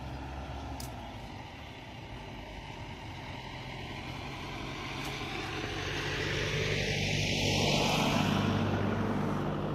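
Engine drone with a low steady hum and a noisy wash, growing louder to a peak about eight seconds in, then easing off a little, as of a motor vehicle passing.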